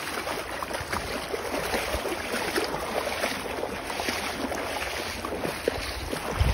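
Two pocket bully dogs wading through a shallow creek, their legs splashing the water in a steady, irregular run of small splashes.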